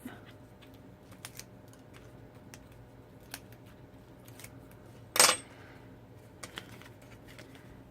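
Faint clicks of paper and cardstock being handled, with one short, loud ripping rustle about five seconds in: the backing liner being peeled off double-sided tearing tape.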